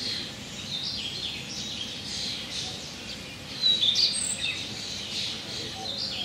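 Several small songbirds singing and chirping, short high notes overlapping one another, a little busier about four seconds in.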